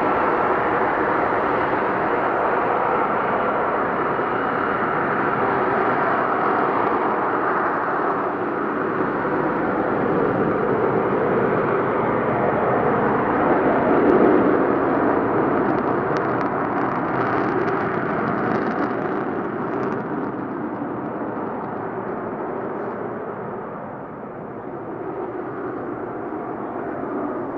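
Lockheed Martin F-35B Lightning II jet hovering, its engine and lift fan making a loud, steady rushing noise that swells about halfway through and eases off a little near the end.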